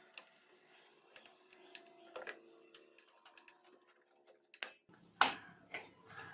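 Scattered light clicks and taps of screws and small metal parts being handled while a welding machine is taken apart, with a sharper knock about five seconds in.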